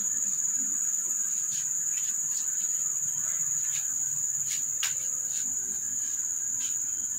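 Steady high-pitched drone of insects such as crickets, unbroken at one pitch, with a few light clicks scattered through it.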